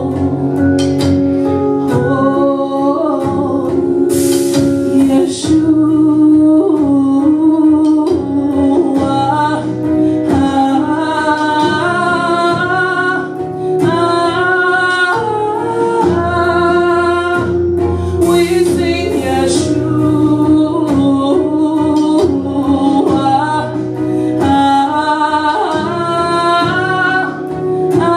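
A woman singing a gospel worship song into a microphone, her voice gliding through long runs over a sustained instrumental backing.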